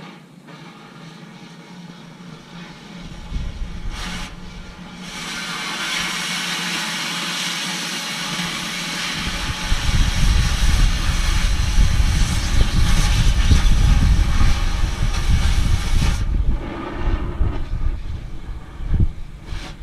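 Steady hissing rush of metal being cut, from about five seconds in until about sixteen seconds, over the low rumble of an engine that grows louder about halfway through and keeps running.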